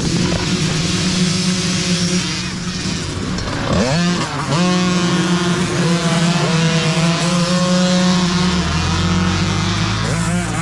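A pack of mini dirt bikes at a race start. Their small engines are first held at steady revs, then rise sharply in pitch about four seconds in as the bikes launch, and several engines keep running together after that.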